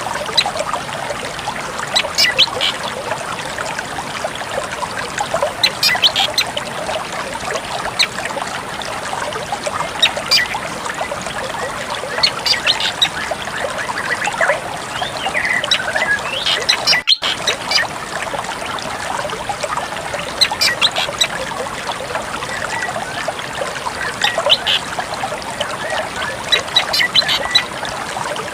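Drongo calling: short, high notes every couple of seconds over a steady trickle of running water, with a brief dropout in the middle.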